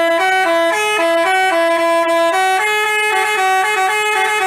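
Basuri telolet bus horn playing a melody: a run of loud horn notes stepping up and down in pitch every quarter to half second without a break.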